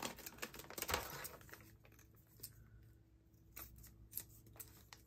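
Scissors snipping through plastic packaging film, with the film crinkling: a quick run of faint clicks in the first second or so, then a few scattered soft clicks as the pouch is handled.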